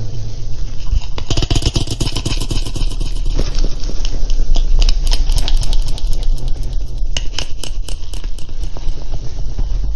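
Close handling noise: dense, irregular scraping and rattling clicks from about a second and a half in, over a steady low rumble.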